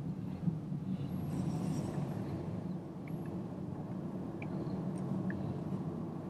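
Steady driving noise of a Toyota Corolla 125h 1.8 hybrid heard from inside the cabin as it pulls away up a slip road: a low, even hum of tyres and drivetrain.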